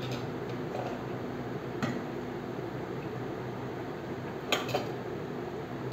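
Cutlery and dishes clinking a few times, once about two seconds in and twice in quick succession near the end, over a steady low hum.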